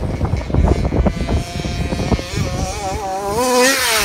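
Two-stroke petrol engine of a 1/5-scale HPI Baja 5T RC truck, running low and uneven at first, then revving with a wavering, rising pitch. It is loudest near the end as the truck passes close.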